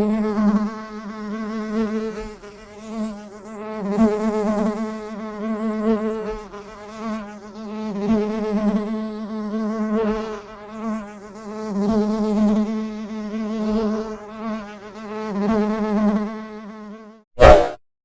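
Bee buzzing in flight, a steady wing-beat drone that wavers and swells and fades every second or two as it moves nearer and away. The buzz stops near the end, followed by a short, loud burst.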